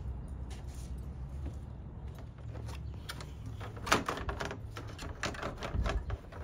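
Low steady rumble. About four seconds in, a sharp knock, then clicking and clattering of a hard plastic radiator support cover being handled above a 1999 Chevy Silverado's grille.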